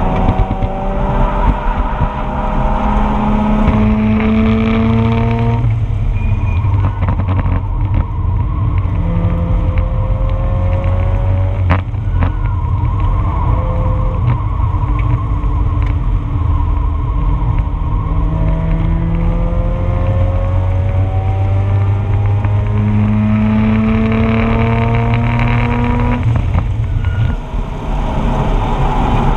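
2004 Mazda RX-8's two-rotor rotary engine under load on track, heard from inside the car, its pitch climbing steadily as the car accelerates. The pitch drops abruptly about six seconds in and again near the end, as the driver shifts or lifts, over steady road and wind noise.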